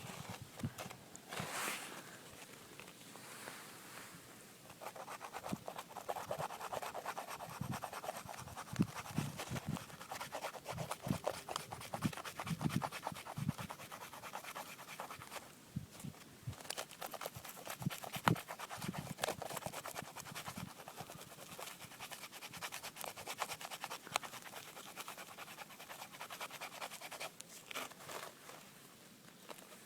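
Footsteps crunching through snow at a walking pace, mixed with scratchy rustling and scraping, with quieter stretches near the start and end.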